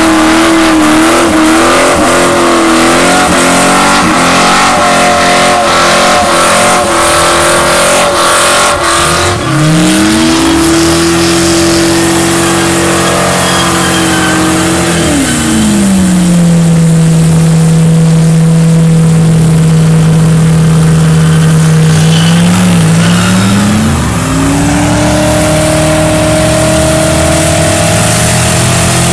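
Ford Mustang engine held at high revs during a burnout, the rear tyres spinning into clouds of smoke. For the first half the pitch stays high and wavering over a hiss of spinning tyres. It then drops to a lower steady pitch for several seconds and climbs back up near the end.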